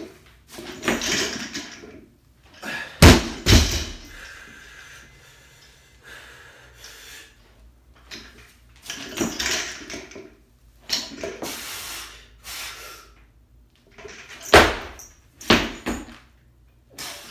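A 300 lb barbell loaded with bumper plates knocking against the floor several times, the loudest pair about three seconds in and more near the end, between heavy, straining breaths of the lifter during a clean-and-jerk complex.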